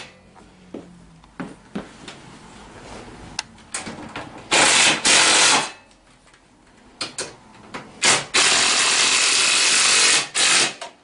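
A power tool running in three bursts of one to two seconds, tightening the bolts of an ATV's rack, with scattered clicks and knocks of tools and metal in between.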